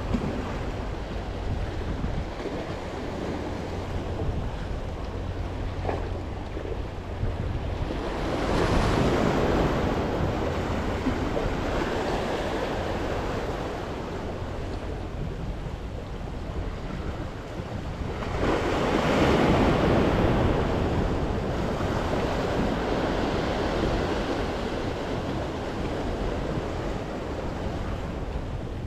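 Sea surf washing against the rocks of a breakwater, swelling louder twice, about eight and nineteen seconds in. Wind buffets the microphone throughout.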